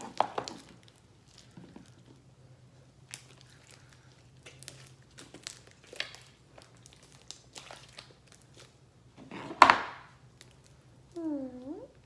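Hands kneading and stretching slime during activation: scattered sticky clicks and crackles, with one louder squelch near the end. Just before the end there is a brief pitched sound that dips and then rises.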